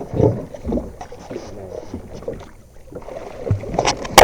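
Irregular knocking and handling noise aboard a small fishing boat, with a sharp loud click near the end.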